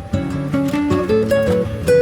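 Background music: a plucked acoustic guitar melody, single notes stepping up in pitch over a lower accompaniment.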